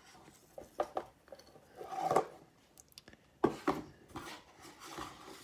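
Hands handling a small cardboard box with foam packing peanuts and a flexible printed card: faint, scattered rustling and light knocks at irregular moments.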